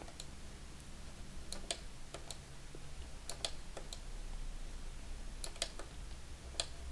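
Scattered light clicks from computer mouse and keys, about a dozen spread irregularly, over a low steady hum.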